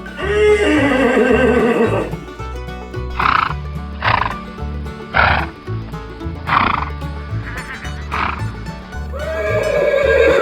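A horse whinnies with a falling neigh, then gives five short blows of breath about one a second, and starts another neigh near the end. Background music with a steady bass line runs underneath.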